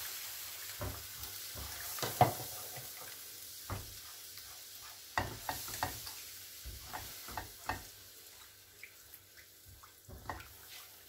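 A butter-and-flour roux in a nonstick frying pan sizzling softly as milk is added a little at a time, with a silicone spatula stirring and scraping against the pan in irregular knocks. The sizzle fades away over the last few seconds as the milk cools the pan.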